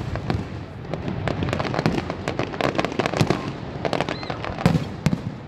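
Fireworks display: aerial shells bursting in an irregular run of sharp bangs with crackling in between, the biggest bangs near the end.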